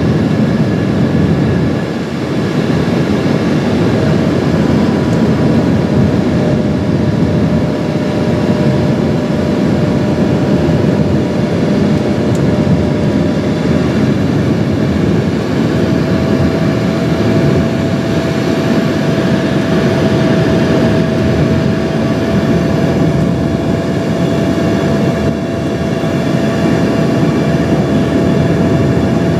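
Steady cabin noise inside an Embraer ERJ 145 in flight on approach: a loud, even rush of air mixed with the hum and whine of its rear-mounted Rolls-Royce AE 3007 turbofans. One steady engine tone steps slightly higher about halfway through.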